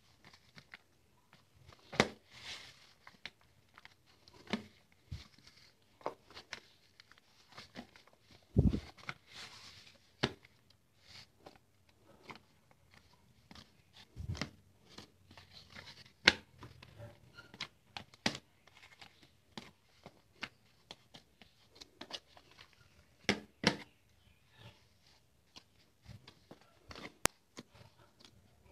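Hand kneading whole-wheat atta dough in a bowl: irregular squishing and tearing of the sticky dough, with sharp knocks of hand and dough against the bowl and two heavier thumps about nine and fourteen seconds in.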